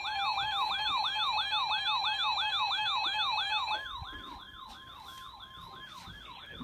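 Emergency Alert System two-tone attention signal, a steady pair of tones, sounding together with a yelping siren whose pitch sweeps up and down about four times a second. The steady tones cut off about four seconds in, and the siren carries on more quietly.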